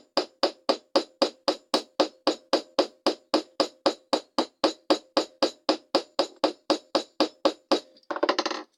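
Small hammer peening the pivot pin of a lockback folding knife set on a steel anvil, striking steadily about three and a half times a second, each blow with a short metallic ring. The pin is being tightened to take out blade play. A brief rattle comes near the end.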